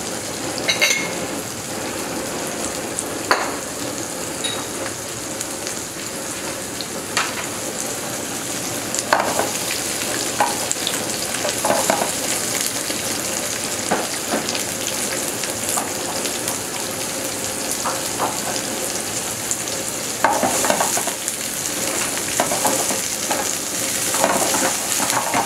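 Hard tofu strips, sliced onion and capsicum sizzling in oil in a frying pan, with a steady hiss throughout. Scattered short taps and scrapes of a silicone spatula against the pan come more often in the last few seconds, as the pieces are stirred.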